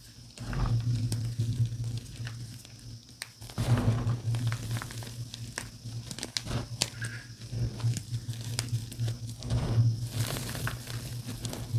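Bare hands crushing and crumbling dyed gym chalk reforms: gritty crunching and crackling as the chunks break, with louder surges about half a second in, near four seconds and near ten seconds.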